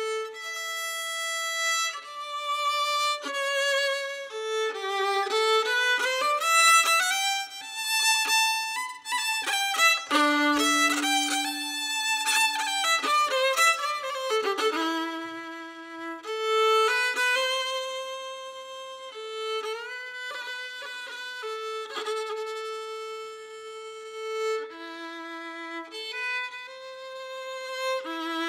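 Solo fiddle playing an Irish traditional-style tune: a single melody of long held notes joined by quick ornamented runs.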